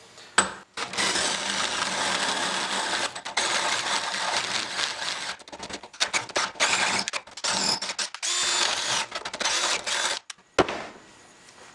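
Makita cordless drill boring through a metal spark plug non-fouler clamped in a bench vise. The bit cuts in several runs with short pauses, with a sharp click about half a second in and another just before the end.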